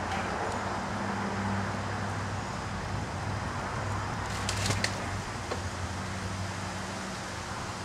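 A steady low mechanical hum over outdoor background noise, with a few sharp clicks about halfway through.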